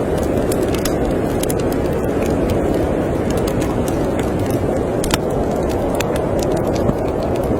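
Storm wind blowing steadily, with the irregular pops and crackles of a wood fire burning in a fireplace.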